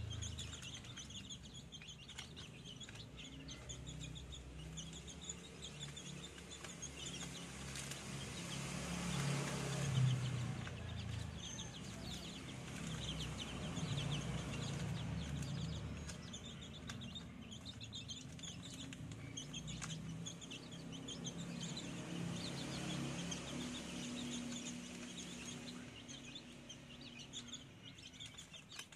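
A flock of young chickens cheeping and clucking in a cage: a steady stream of many short, high-pitched chirps, over a low steady hum that swells about a third of the way through.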